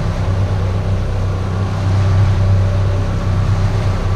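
Boat's outboard motor running steadily under way at trolling speed: a constant low hum, with the rush of wind and wake over it.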